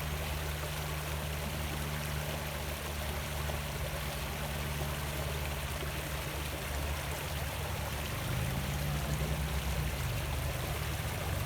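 Small creek flowing steadily over rocks, a continuous rushing and trickling of water. Underneath it runs a low steady hum that shifts in pitch and grows a little louder about eight seconds in.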